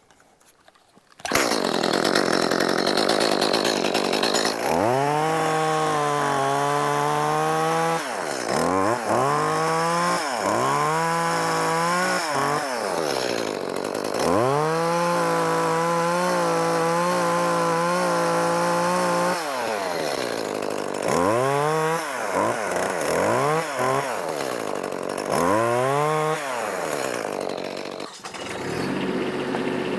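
Echo chainsaw cutting through an oak branch. It comes in suddenly about a second in and is revved up and down again and again with the cuts, then drops back to a steadier, lower running sound near the end.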